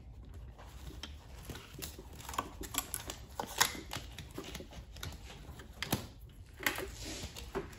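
Scattered small clicks and rustling from hands working on the underside of a 2014 Mitsubishi Mirage seat, handling its plastic wiring connector and pulling at the seat cover; one click about halfway through is the loudest.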